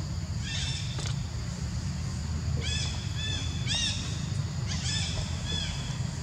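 Repeated short, high animal calls, each rising and falling in pitch, coming in small runs, over a steady low hum.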